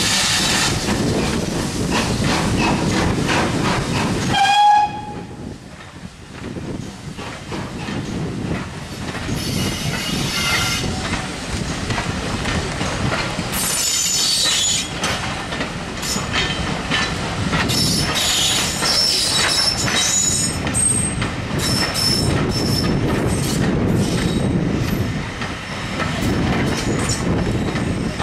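Passenger train behind GWR 'Manor' class 4-6-0 No. 7820 Dinmore Manor rolling past. The locomotive is heard working loudly at first, with a short pitched tone, the loudest moment, about four and a half seconds in. Then the coaches go by, their wheels clicking over rail joints, with high flange squeals through the middle part.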